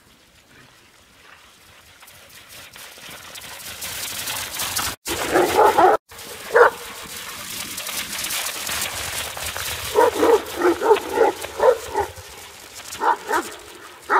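Irish wolfhounds barking and yipping in play in short, quick bursts: a cluster about five seconds in, then a rapid run of yips from about ten to thirteen seconds.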